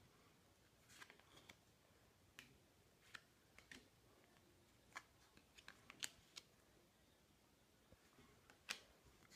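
Faint, scattered clicks and snaps of Topps Match Attax trading cards being flicked through one by one in the hand, with the sharpest snap near the end.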